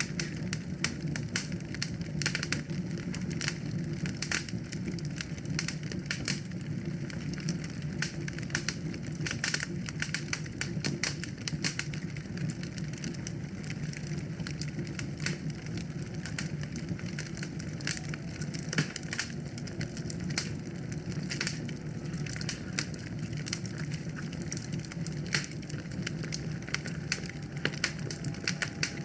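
Wood fire burning in a fireplace: a steady low rumble of flames with dense, irregular crackles and sharp pops throughout.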